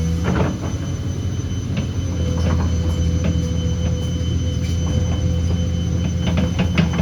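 Excavator's diesel engine running steadily under load, with short metallic squeals and clanks from the working machine.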